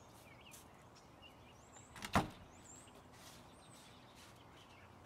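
A single sharp thud of a front door about two seconds in, over a quiet background with a few faint high chirps.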